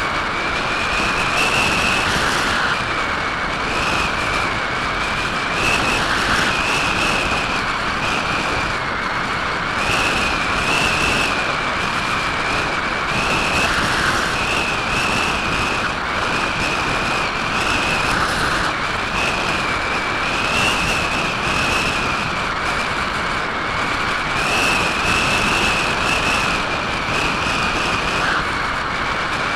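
In-flight noise from a Parkzone Radian RC glider's onboard camera: a steady rush of airflow with a high whistle that wavers slightly up and down in pitch every second or two.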